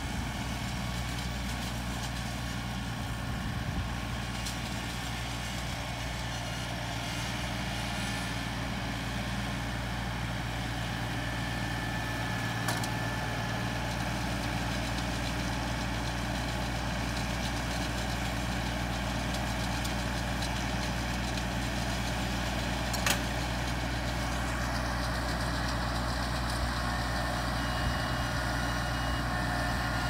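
Compact tractor engine running steadily under load as it drives a mini round baler through windrowed hay, with a couple of sharp clicks from the machinery. The sound grows slightly louder as the rig works its way along the rows.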